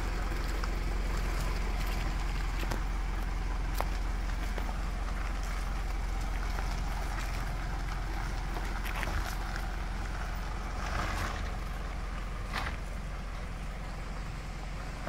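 Mitsubishi Pajero SUV moving slowly over a muddy, rutted dirt trail: a steady low engine drone with tyres crunching over dirt and stones and a few sharp ticks. It grows a little fainter near the end as the vehicle pulls away.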